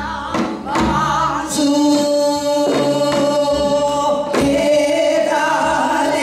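Several women singing together in Korean traditional gugak style, with held, bending notes. A few sharp percussion strokes come near the start and again about four seconds in.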